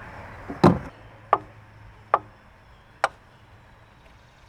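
Four sharp clicks, a little under a second apart, the first the loudest: parts and tools handled while refitting a fuel line and its clamp on a lawn tractor engine.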